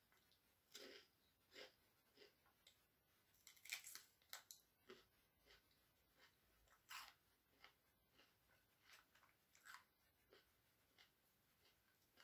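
Faint crunching and chewing as a green chili pepper stuffed with cheese and crushed chips is bitten and eaten: short, irregular crunches, the strongest a little under four seconds in and again about seven seconds in.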